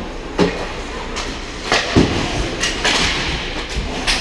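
Ice hockey play up close: skate blades scraping the ice under several sharp knocks of sticks, puck and boards, the loudest about two seconds in.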